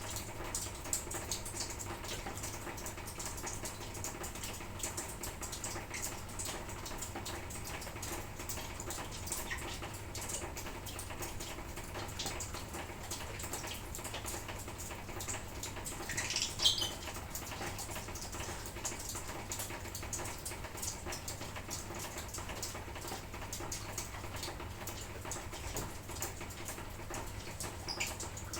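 Light drizzle falling as a steady fine patter of drops, with a lovebird giving one short rising chirp about halfway through, the loudest sound here. A faint low hum runs underneath.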